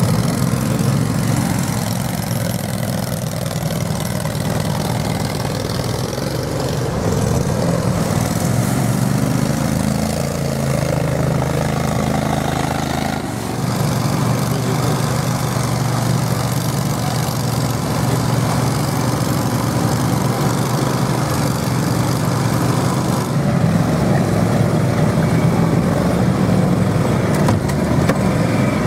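Small engines of tracked amphibious 8x8 ATVs running steadily as the machines crawl through water and mud. The engine note changes about thirteen seconds in.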